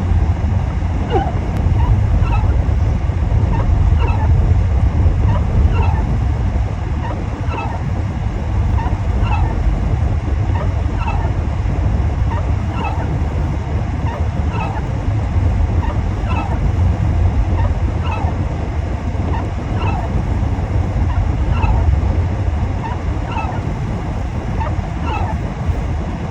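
Steady low road and engine rumble inside a moving car, with a short squeak repeating evenly about every second and three-quarters, the sound of windshield wiper blades sweeping the glass in snow.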